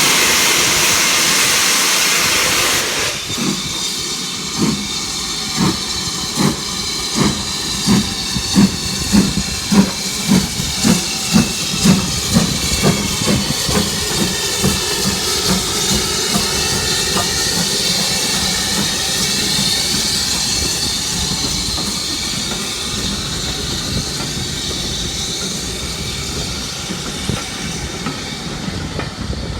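BR Standard Class 4 2-6-4 tank steam locomotive starting away: a loud hiss of steam cuts off about three seconds in, then the exhaust chuffs begin slowly and quicken steadily as the train gathers speed, loudest around ten to twelve seconds in, before merging into a fading rumble and hiss as it moves off.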